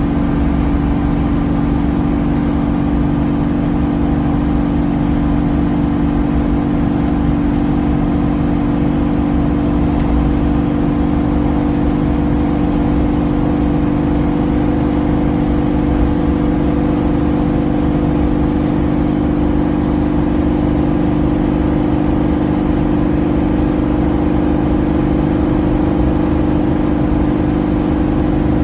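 Engine and road noise heard inside the cab of a 2014 Sunstar 26HE motorhome cruising at about 56 mph in fourth gear: a loud, steady drone with a steady engine hum and low rumble. The firewall and dash are not yet insulated.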